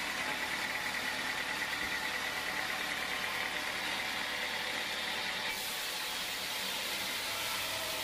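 Band sawmill running, its blade cutting lengthwise through a teak log with a steady, even noise. The sound changes abruptly about five and a half seconds in.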